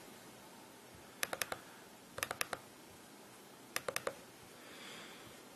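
Sharp clicking at a computer, in three quick bursts of three or four clicks each, spread over a few seconds.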